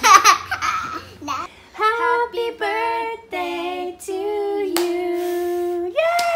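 A young child shouts excitedly, then a child's voice sings a short tune in a few held, stepped notes, the last one held longest. Near the end a high falling cheer and hand clapping begin.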